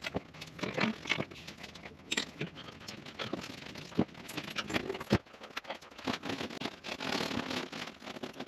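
Irregular scrapes, rustles and clicks of hands handling wiring and parts at a boat console, with a sharp knock about five seconds in and denser rustling near the end.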